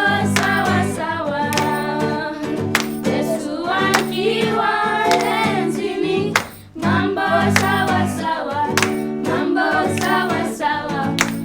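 A song: singing over instrumental accompaniment with a steady beat, with a brief break a little past halfway.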